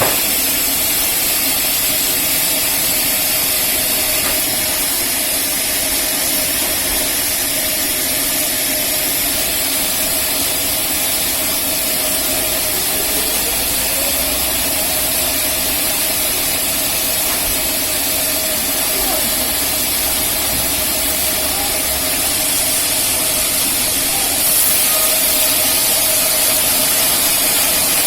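Rail-mounted band sawmill running steadily, a little louder about 24 seconds in.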